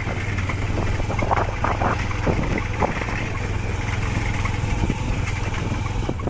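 Motorcycle riding over a rough dirt track: a steady low engine and wind rumble, with scattered knocks and rattles from the bumpy surface.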